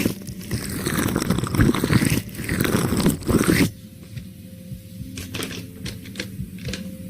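Close-miked ASMR sounds: dense, sticky crackling full of small clicks for about the first three and a half seconds, then quieter with scattered single clicks.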